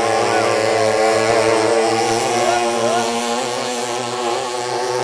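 Two small racing long-tail boat engines running flat out side by side, their pitches wavering up and down as the boats race, over a steady low hum.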